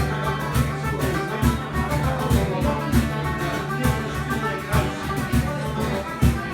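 Music with a steady beat and a held low note, played by instruments with drums.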